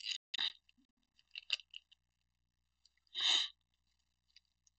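Yu-Gi-Oh trading cards being handled: small scattered crinkles and clicks, with one short, louder rush of noise about three seconds in.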